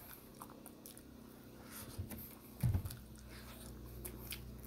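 A person chewing a mouthful of soft grilled banana, with faint wet mouth clicks. About two and a half seconds in there is a low thump, then a faint steady low hum.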